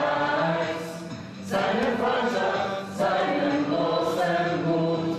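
Choir singing, several voices holding notes in short phrases, with brief breaks about a second and a half and three seconds in.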